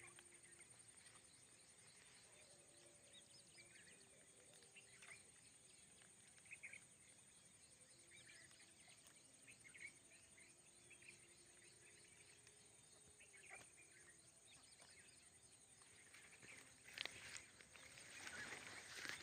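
Near silence with faint outdoor ambience: a steady high-pitched insect buzz and scattered faint bird chirps, with a brief louder rustling noise near the end.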